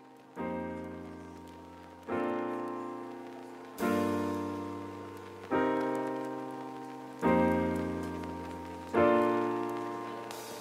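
Slow keyboard music: a sustained chord struck about every 1.7 seconds, six in all, each left to ring and fade before the next.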